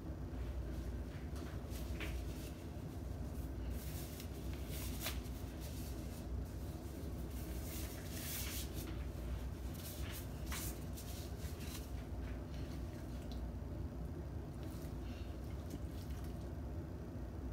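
Raw pork chunks being handled and moved into a glass bowl by gloved hands: wet squishes and scattered soft clicks over a steady low hum.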